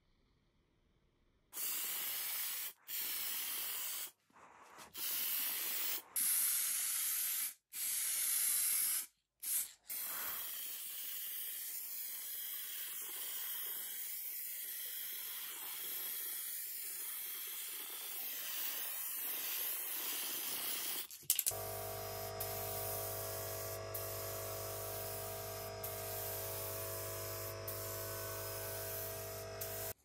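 Pressurised spray hissing in a run of short bursts, then held continuously. About two-thirds of the way through, a steady motor hum with a few held tones joins the hiss.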